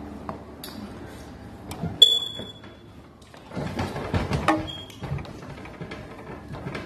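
Eating and food-handling noises: scattered clicks and knocks, with a short high ringing tone about two seconds in and a denser run of clicks in the middle.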